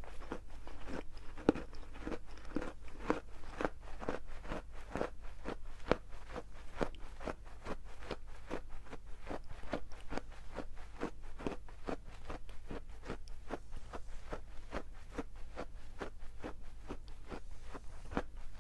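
Dry edible clay being bitten and chewed close to the microphone: crisp, brittle crunching at about three crunches a second.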